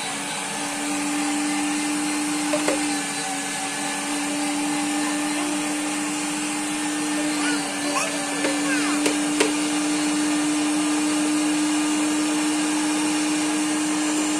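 Steady whirring hum of an electric motor, with a few light clicks of cookie pieces being handled in a bowl.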